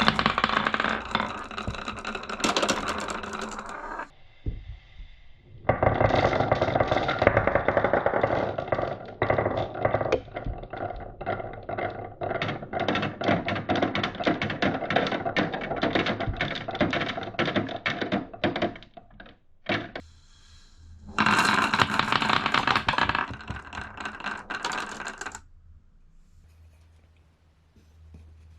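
Marbles rolling and clattering down a toy marble-run slope, many rapid clicks and knocks in three long runs, the middle one the longest, before it dies away near the end.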